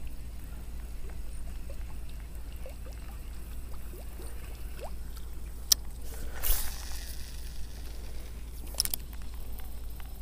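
A cast with a baitcasting reel: a sharp click about halfway through, then a short rush of the spool spinning and line paying out for under a second, and a few clicks near the end as the reel is handled again.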